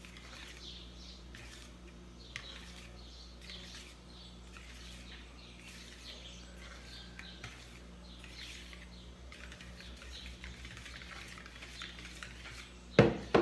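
A stand-mixer beater held by hand folding flour into whipped egg foam in a bowl: soft irregular scraping and swishing through the batter, then a sharp clank of the metal beater against the bowl near the end.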